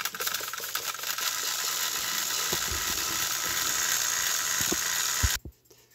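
Two battery-powered Thomas & Friends toy engines' electric motors and plastic gears running flat out as they push against each other, with scattered clicks and rattles. A sharp knock comes about five seconds in, and the whirring cuts off suddenly.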